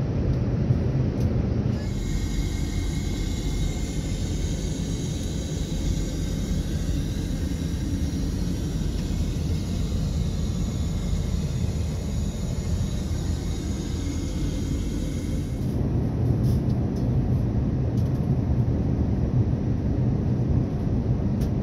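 Steady low rumble of an Airbus A380 cabin in flight: engine and airflow noise heard from an upper-deck seat. A faint hiss rides on top of it for most of the middle stretch.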